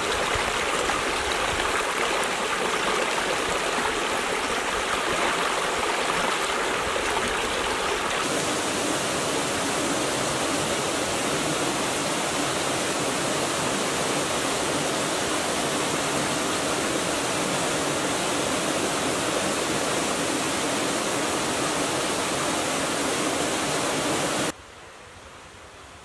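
Rocky mountain stream rushing steadily over stones, shifting slightly in tone about eight seconds in. Near the end it cuts off suddenly to a much quieter background hiss.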